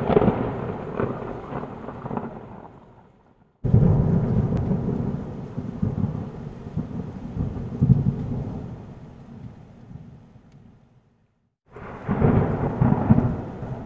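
Thunderstorm sound effect: rolling thunder in separate peals. The first fades out and cuts to silence, a second crashes in suddenly about three and a half seconds in and rolls away slowly, and a third strikes near the end.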